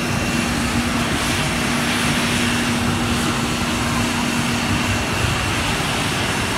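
Jet airliner's twin turbofan engines running at low taxi thrust as the plane rolls past: a steady hum with a high whine over a broad rushing noise.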